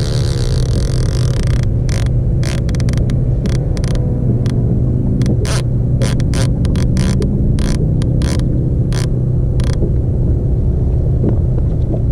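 A motor's steady low hum throughout, with a run of irregular sharp clicks from about two seconds in to near the end.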